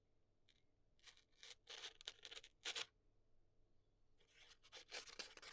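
Freshly sharpened wood chisel slicing through a sheet of paper: a few short, dry cutting strokes about a second in, then another run near the end. The clean cuts show a keen edge.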